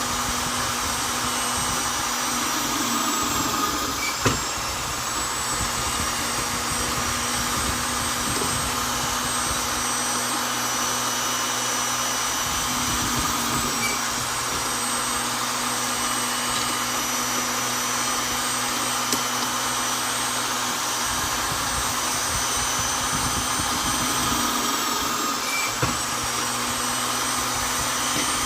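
Vonder electric drill running continuously, boring into wood: a steady motor whine that sags in pitch briefly about four seconds in and again near the end, with a small click each time.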